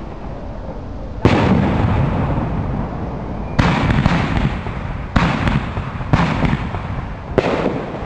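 Aerial fireworks shells bursting: five sharp bangs one to two and a half seconds apart, each trailing off in a long echo.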